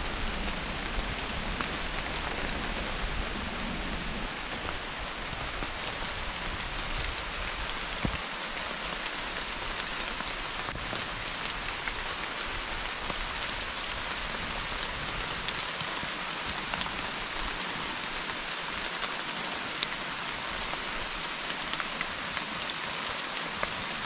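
Steady rain falling: a constant hiss with scattered ticks of individual drops hitting close by.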